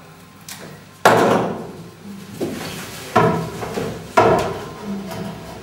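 Things being knocked and set down on a wooden table: three sharp knocks, the first and loudest about a second in, then two more about two and three seconds later, each followed by a short ringing.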